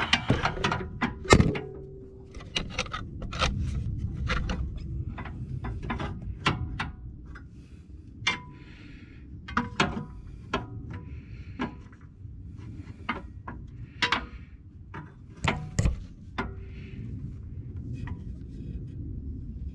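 Steel pry bar knocking and scraping against the lower control arm and its mounting bracket as it is levered to line up the bolt hole: a string of irregular sharp metal knocks, some of them ringing briefly.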